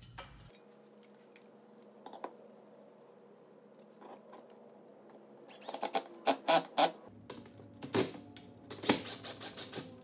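Sharp clicks and knocks of a metal TV wall-mount bracket and its lag bolts being handled and set against a wall. A quick run of clicks comes about six seconds in, with a few more near the end.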